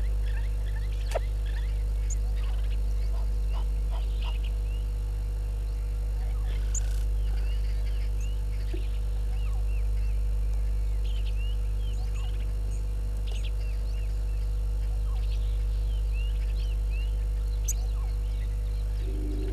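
Bush ambience: many short bird chirps scattered throughout over a steady low hum, with two sharp clicks, one about a second in and one near the end.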